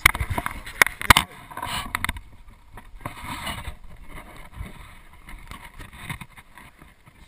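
Handling noise on a camera strapped to a dog as the dog moves against a person and is petted: a few sharp knocks in the first second or so, then softer rubbing and rustling.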